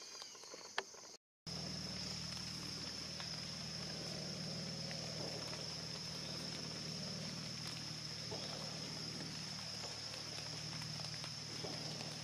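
Insects chirring steadily in one high-pitched band, with a low steady hum underneath and a few faint ticks; the sound drops out briefly about a second in.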